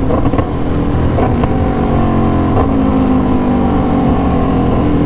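Aprilia Tuono V4 1100 Factory's V4 engine running at a steady cruise through an SC Project CR-T exhaust, its pitch drifting gently lower with a small change about halfway through.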